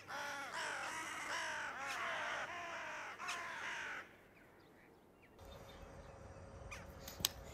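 A bird calling about six times in quick succession, each a short call that bends in pitch, stopping about four seconds in. A low rumble and a few sharp clicks follow near the end.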